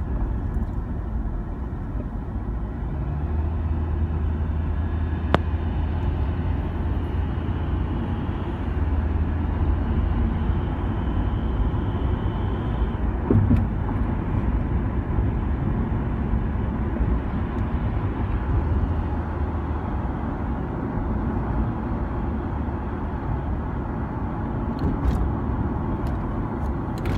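Car driving at highway speed: a steady low rumble of engine and tyre noise, heard from inside the cabin, with a single sharp click about five seconds in.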